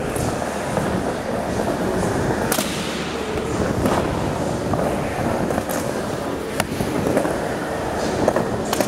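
Skateboard wheels rolling over a skatepark ramp: a steady rumble broken by several sharp clacks of the board.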